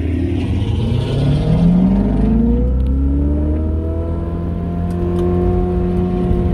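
Ferrari 488 Spider's twin-turbo V8 heard from inside the cabin, its revs climbing smoothly as the car accelerates, then levelling off to a steady cruise about three seconds in.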